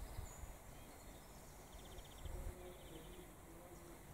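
Quiet outdoor ambience: faint wind rumble, with several short, rapid high trills from small birds repeating about once a second.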